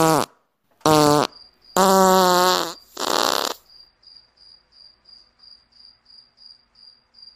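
Cartoon fart sound effects: a short falling one, a longer flat buzzing one, then a raspy burst. These are followed by a cricket-chirp sound effect, steady chirps about three a second, the comic cue for an awkward silence.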